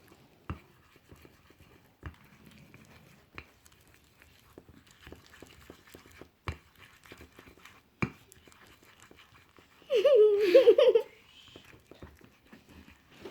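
Scattered light clicks and taps from slime-making at a bowl. About ten seconds in, a loud wavering cry lasting about a second.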